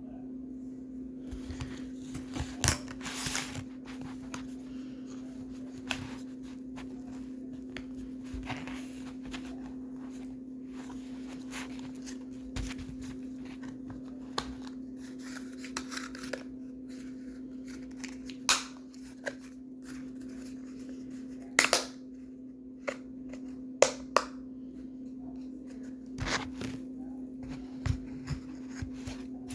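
Plastic toy playset pieces being handled and fitted back together by hand: scattered clicks, knocks and short rustles at irregular moments, over a steady low hum.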